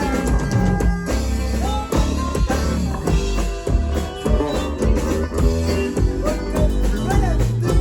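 A band playing an instrumental passage of a Christian song: guitar melody over bass and a drum kit keeping a steady beat.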